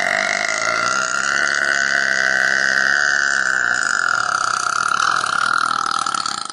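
A woman's single long, loud, drawn-out burp, steady in pitch, that cuts off abruptly near the end.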